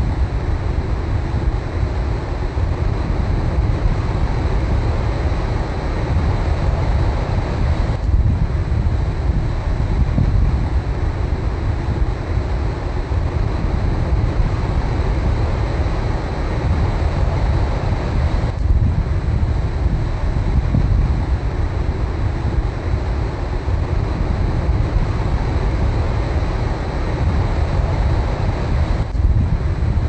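Ocean surf breaking and washing in foam around a rock, under heavy wind noise on the microphone: a steady, loud rumble weighted to the low end.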